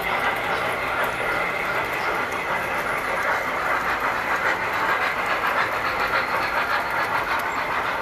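Tinplate model trains running on metal track: a steady, even clatter of wheels and motors.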